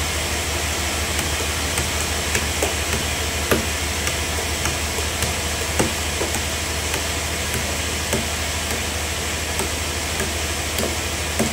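Hand hammer knocking on a large timber log, a dozen or so sharp blows at uneven intervals, over a steady low machine drone with a hiss.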